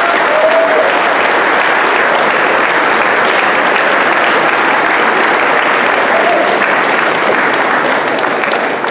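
Audience applauding steadily, the clapping easing off near the end.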